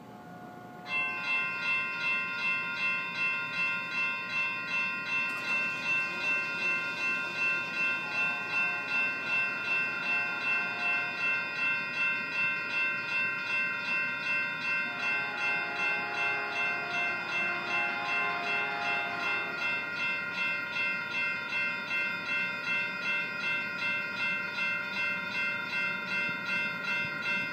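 Railroad grade-crossing warning bell starting about a second in and ringing steadily, about two strokes a second, as a commuter train approaches the crossing.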